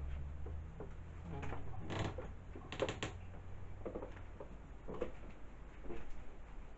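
A series of soft knocks and clatters, roughly one a second, over a low steady hum that fades out within the first few seconds.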